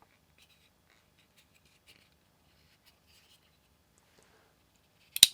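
Faint rubbing and small clicks of a Gerber Kettlebell frame-lock folding knife being handled, then one sharp, loud click near the end as the blade snaps open. The pivot is still tight.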